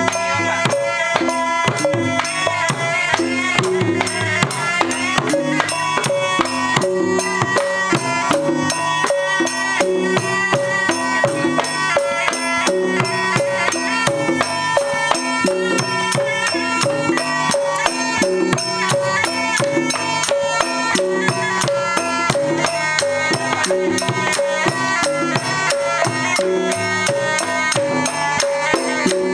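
Traditional Malay wayang kulit ensemble music: drums and small jingling cymbals play a fast, even beat under a sustained melody line, steady throughout.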